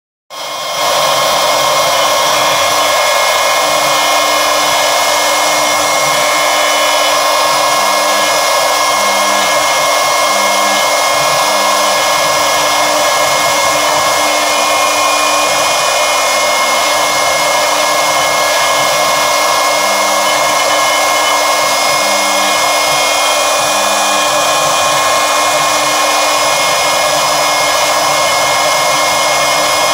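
A CNC machine's router spindle running at high speed as it carves a wooden board, a loud, steady whine and rush of noise. Fainter low tones come and go underneath.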